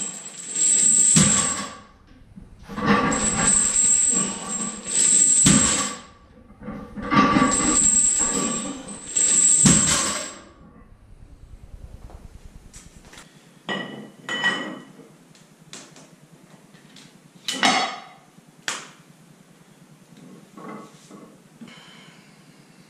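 Metal clanks and clinks of barbell and weight plates being handled, several sharp strikes with a short ring. They follow a run of loud rasping noise bursts, each about a second long, in the first half.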